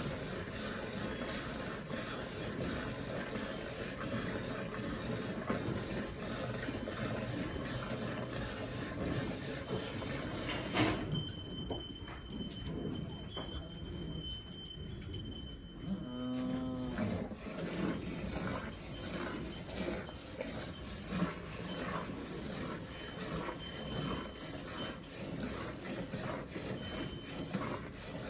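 Cowshed sounds during milking: a continuous rustling hiss with many small clicks and knocks. A cow moos once, briefly, about two-thirds of the way through.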